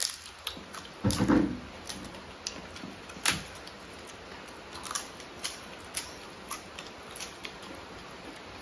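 Close-up eating sounds: crisp papad being bitten and chewed, with a louder crunch about a second in, a sharp snap near three seconds, then a run of small crackling clicks as the chewing goes on.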